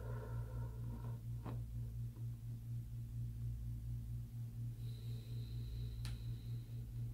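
Low, steady machine hum with a fast, even pulse, with a faint click about one and a half seconds in and another about six seconds in.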